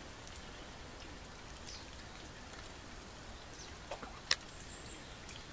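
Quiet outdoor background hiss with a few faint, short, high bird chirps and one sharp click about four seconds in.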